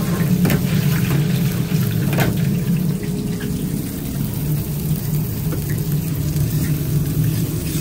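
Steady commercial-kitchen noise: a low hum from the extraction hood with a hiss of food frying, onion rings in a deep fryer and cheeseburger patties on a flat-top griddle. A couple of light metal clicks in the first few seconds.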